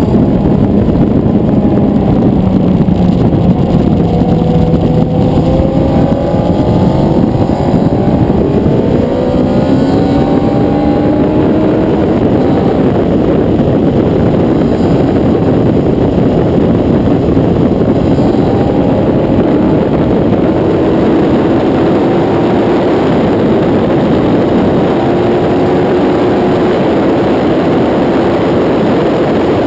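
Suzuki GSX-R 1000 inline-four engine running hard on track, under heavy wind rush on an onboard camera's microphone. The engine note falls over the first few seconds as it slows for a corner, then rises from about six seconds in as it accelerates and keeps climbing slowly.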